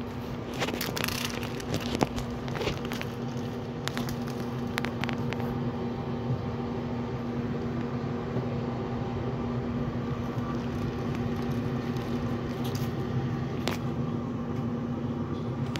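A steady machine hum with a low, even tone, under scattered crinkles and clicks of plastic zip-top bags and raw chicken being handled, busiest in the first couple of seconds.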